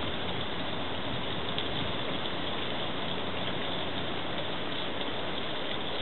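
Garden fountain's water running in a steady, even rush.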